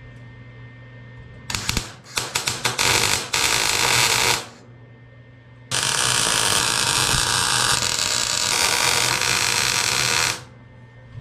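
Arc welding on sheet-steel panels: a few short stuttering strikes about a second and a half in, then a weld of about three seconds, and after a pause a longer steady weld of about five seconds, with the crackling hiss of the arc. A steady low hum runs underneath.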